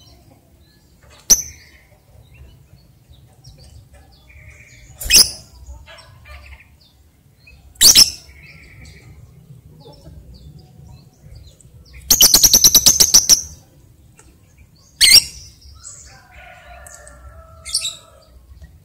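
Lovebird giving loud, shrill single calls every few seconds, and about twelve seconds in a rapid run of repeated notes, about ten a second for roughly a second and a half: the chattering trill that Indonesian keepers call 'ngekek'. Fainter, lower chirps follow near the end.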